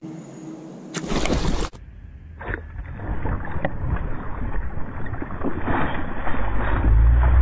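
Water splashing and churning as a fish thrashes at the surface, growing louder, with wind rumbling on the microphone near the end. A brief burst of noise comes about a second in.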